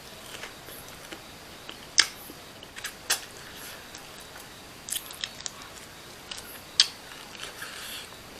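Close-up eating sounds: biting and chewing chicken, with a handful of sharp crunchy bites, the loudest about two seconds in and near seven seconds.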